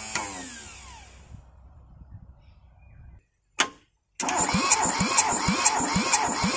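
Kubota Z600 two-cylinder diesel being cranked by its starter motor: a steady starter whine with rhythmic compression pulses, about three a second, without the engine catching. At the start the cranking winds down with a falling pitch. After a pause and a single click a little over three and a half seconds in, cranking starts again.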